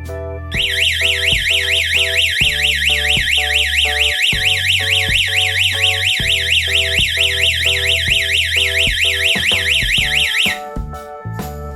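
Security alarm system's electronic siren sounding with a fast up-and-down warble, about five sweeps a second. It starts about half a second in and cuts off suddenly after about ten seconds, the alarm's timed ten-second sounding before it switches itself off. Keyboard music with a steady bass plays underneath.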